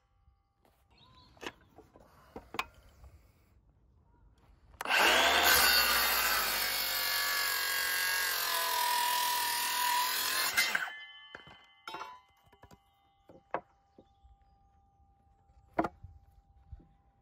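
Milwaukee FUEL brushless cordless circular saw cutting through a length of timber for about six seconds, its motor whine dipping as the blade bites into the wood. A few light knocks of timber being handled come before and after the cut.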